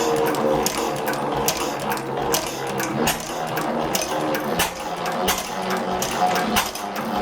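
A rebuilt 1903 Gardner single-cylinder stationary engine running on petrol, with flick-magneto ignition. It runs a bit fast: untuned after the rebuild. A sharp knock comes a little more than once a second, with lighter mechanical ticking from the valve gear in between.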